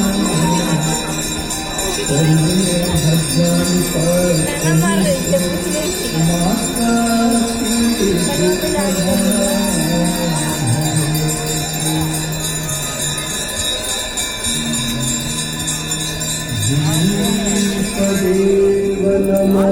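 Music with a singing voice line and jingling bells.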